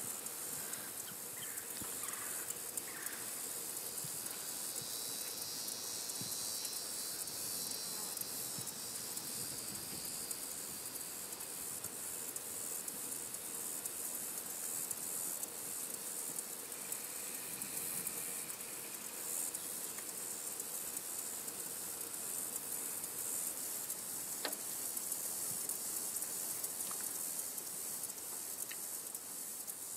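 Steady high-pitched insect chorus, with a louder buzzing trill for several seconds near the start and a lower one briefly a little past halfway.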